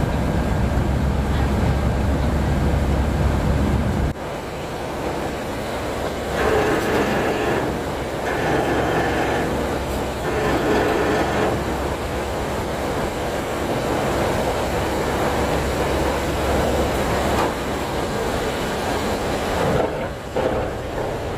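Ferry's engine and deck machinery running with a steady mechanical din. A heavy low rumble drops away suddenly about four seconds in, and a rougher, lighter running noise carries on after it.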